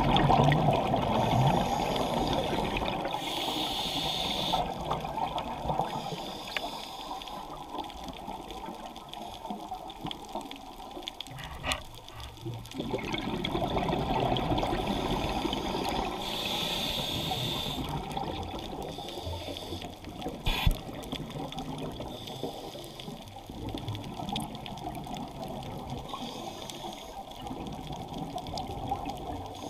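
Scuba divers' exhaled bubbles rushing and gurgling up through the water, heard underwater in swells a few seconds long. Two sharp clicks stand out, about halfway through and again around two-thirds of the way in.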